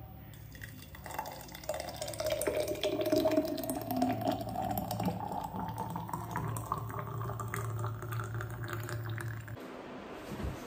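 Thick avocado smoothie poured from a steel blender jar into a glass mason-jar mug, the pouring sound rising steadily in pitch as the glass fills, stopping about nine and a half seconds in.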